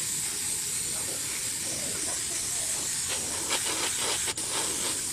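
Airbrush hissing with a steady stream of compressed air as paint is sprayed through a paper stencil. There is a sharp click a little past four seconds in.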